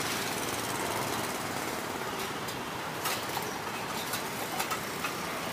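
Steady roadside traffic noise with motor vehicles running, and a few light clicks and knocks about halfway through.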